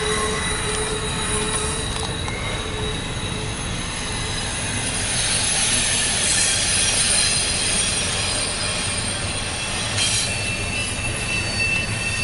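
Double-stack intermodal freight train rolling past: a steady sound of steel wheels on rail, with thin high-pitched wheel squeal.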